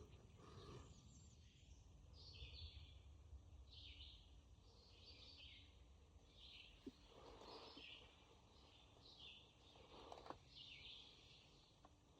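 Faint woodland quiet with a bird calling over and over, short high notes about once or twice a second, and a couple of soft rustles.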